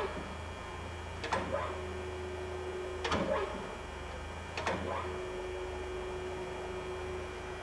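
Alzmetal AB4SV gear-driven drill press running with its spindle in reverse: a steady electric hum with a constant tone. Three short knocks come about a second, three seconds and four and a half seconds in.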